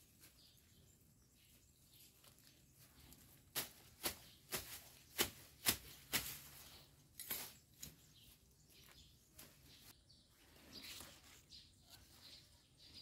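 A run of about nine sharp, irregular taps or clicks between about three and a half and eight seconds in, over a faint background.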